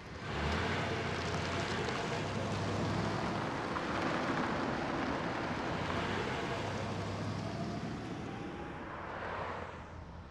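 Steady vehicle noise: a loud even rush with a low hum underneath, easing off near the end.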